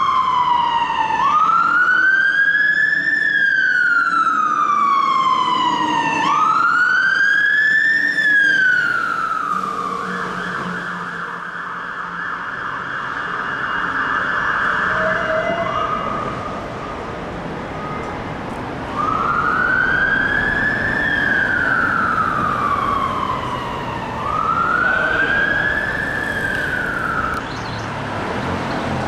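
London Fire Brigade fire engine siren sounding a slow wail, each rise and fall taking about five seconds. Partway through, the wail gives way to a steady horn tone for several seconds before the wail resumes.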